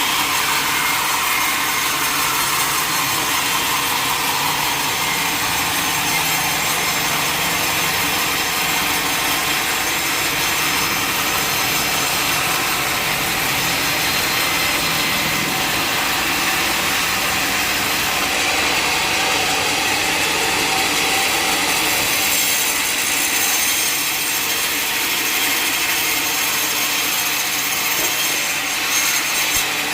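Sawmill saw cutting through a large log, running steadily, with a whine that falls in pitch over the first few seconds.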